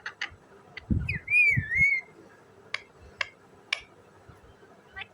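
Rose-ringed parakeet giving a wavering whistle about a second in, with short sharp chirps before it and three more afterwards. A few dull low thumps sound under the whistle.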